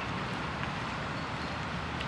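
Diesel shunting locomotive engine running steadily as the locomotive approaches at low speed.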